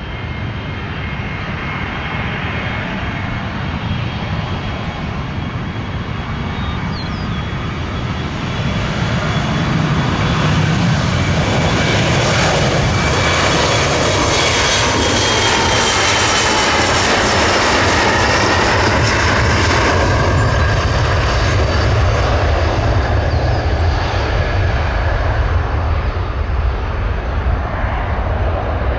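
Embraer E170 airliner's twin GE CF34 turbofans at departure power, the jet noise building to a loud rush through the middle and easing slightly near the end. A whine in the engine sound falls in pitch as the jet passes.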